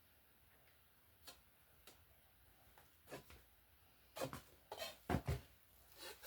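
Scattered light clicks and knocks of small objects being handled, with a cluster of louder knocks about four to five and a half seconds in.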